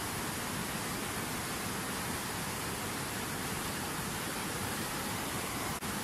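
Fast whitewater mountain river rushing over boulders, a steady, even wash of water noise, with a momentary dip in level near the end.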